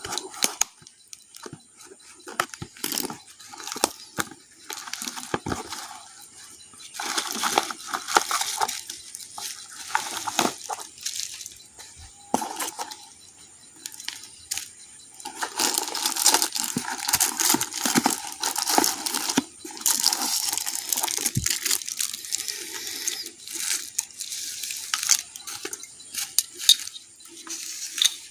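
Packaging being handled and unwrapped by hand: irregular crinkling and rustling with scattered clicks and taps, busiest in two longer stretches in the middle and second half.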